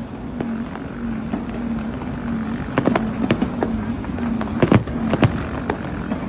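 Fireworks going off in scattered bangs and pops, a cluster about three seconds in and the loudest about four and a half to five seconds in, over a low pulsing hum.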